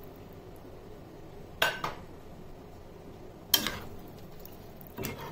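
A metal spoon clinking against a saucepan while stirring rice in liquid: a few separate short clinks, with quiet between them.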